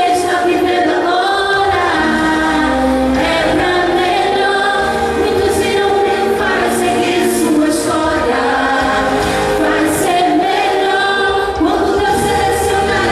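A woman singing a gospel praise song into a handheld microphone, amplified through the church's loudspeakers, with held, bending sung notes.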